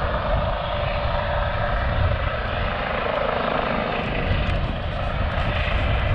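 RAF training helicopter flying past, a steady rotor and engine noise with a flickering low-pitched chop.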